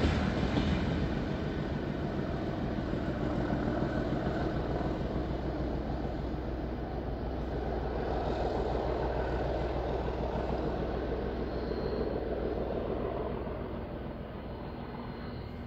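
Class 37 diesel locomotive's English Electric V12 engine working hard under throttle, a steady drone that swells a little, then fades away in the last few seconds.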